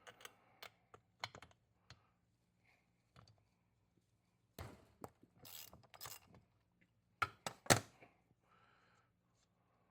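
Hand tools clicking, scraping and clattering against a Poulan chainsaw while its spark plug is taken out, with a couple of sharper clacks a little over seven seconds in.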